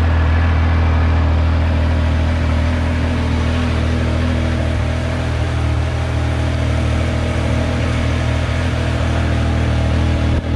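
Triumph Speed Triple 1200RS's three-cylinder engine idling steadily.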